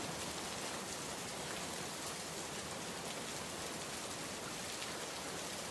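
Steady rain falling on surfaces, an even hiss with no pauses.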